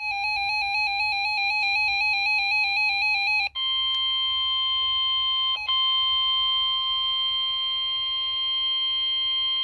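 Weather radio alert tones: about three and a half seconds of a fast warbling electronic tone, then a long, steady high tone near 1 kHz, the NOAA Weather Radio warning alarm tone, with a brief dropout partway through. The tones signal that a severe weather warning follows.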